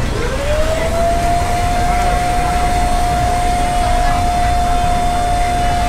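Cotton candy machine's spinning head motor whining: the whine rises in pitch over the first second as it speeds up, then holds at one steady pitch, over a steady background hum.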